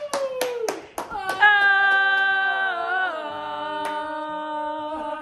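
Several quick celebratory hand claps, then a voice holding one long sung note that steps down in pitch partway through.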